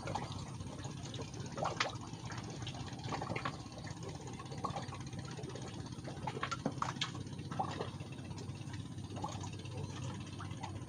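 A steady engine running, with scattered short clicks and knocks over it.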